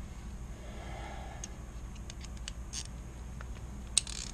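Quiet workbench room tone with a steady low hum and a few faint handling ticks, then one sharp click near the end as a flat screwdriver's tip meets the carbine's barrel band.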